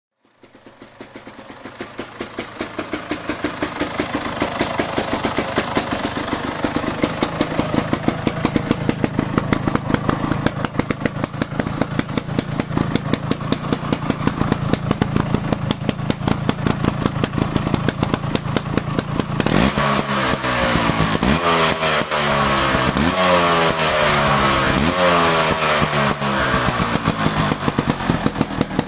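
Honda TLM220's single-cylinder two-stroke engine running at a steady idle. From about twenty seconds in it is blipped repeatedly, the pitch rising and falling with each rev, then it settles back to idle near the end.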